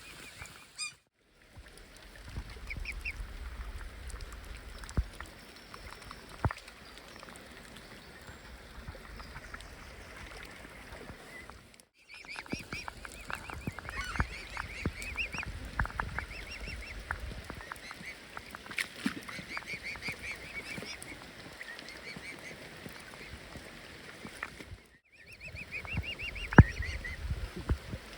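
Swan cygnets giving repeated high, short begging peeps in runs, with scattered sharp clicks among them.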